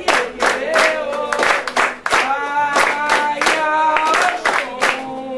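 Group singing a devotional chant to the orixás, a woman's voice leading with others joining in, over steady rhythmic handclapping.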